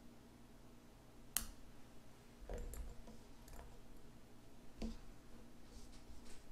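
Small scissors snipping a yarn tail once, a single click about a second and a half in, followed by a few faint rustles of hands handling the crocheted piece on a tabletop.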